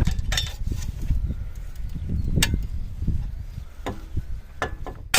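A few separate light metallic knocks and clicks over a low uneven rumble, from steel excavator track parts being handled and tapped.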